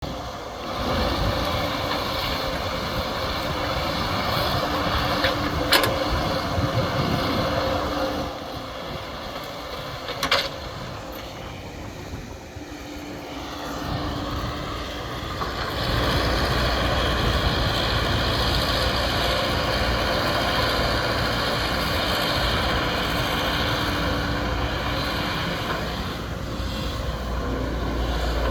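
Excavator's diesel engine running under working load, easing off for several seconds in the middle and picking up again, with two sharp clanks along the way.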